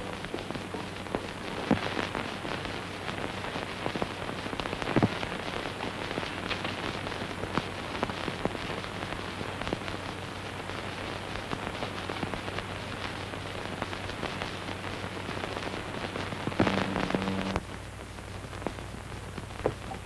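Continuous crackle and hiss of a worn 1930s optical film soundtrack over a low steady hum, broken by a few soft knocks. Near the end a short, low pitched tone sounds for about a second, then the background hiss drops away.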